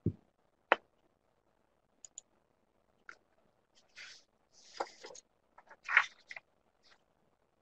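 Faint mouth noises close to a microphone: scattered small clicks and lip smacks, with a few short breaths about four to six seconds in.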